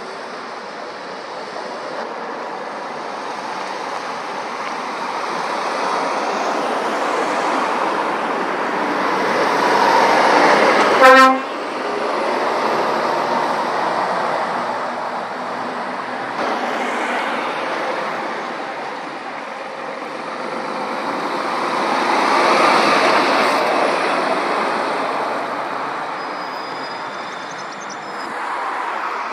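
Heavy road traffic passing, lorry engine and tyre noise swelling twice as vehicles go by. A little over a third of the way through comes one short, sharp horn toot, the loudest sound.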